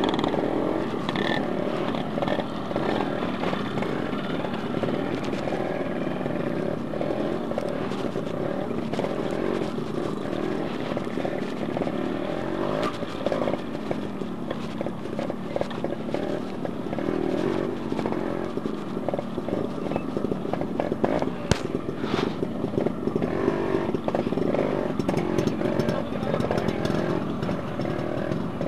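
Yamaha RX-series two-stroke single-cylinder motorcycle engine running at low speed, its pitch rising and falling as the throttle is worked through deep mud. A few sharp knocks come about two-thirds of the way through.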